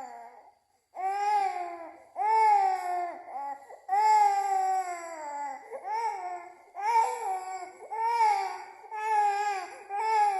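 Baby crying in a run of loud, high-pitched wails, about one a second, after a short pause near the start.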